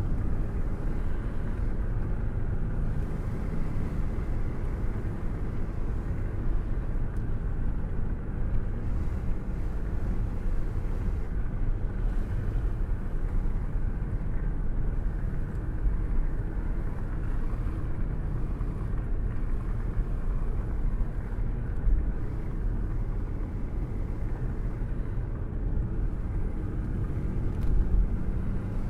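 Thunderstorm: rain falling with a steady low rumble of thunder, with brief louder swells about twenty-two seconds in and near the end.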